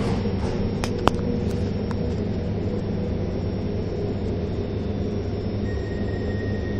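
Steady low rumble inside a metro train carriage, with a couple of sharp clicks about a second in.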